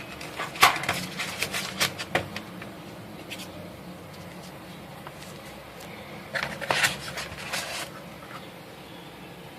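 Small sharp clicks and light knocks of a CO2 airsoft pistol being handled: a cluster over the first two seconds, one about three seconds in, and another run around six to eight seconds in.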